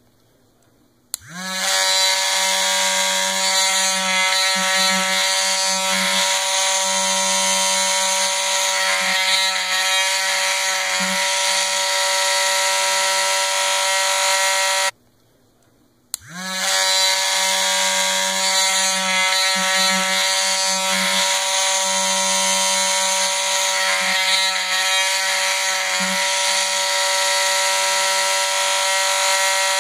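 Corded LARS360 mini rotary grinder with a cone-shaped grinding stone, running free with no load. A click at switch-on, a rising whine as the motor spins up, then a steady high-pitched motor whine. It cuts off abruptly about halfway, then clicks and spins up again the same way.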